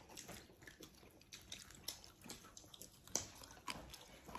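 Faint eating sounds at a meal: chewing and biting into fried dough sticks (cakwe), with scattered small clicks and crackles, the sharpest about three seconds in.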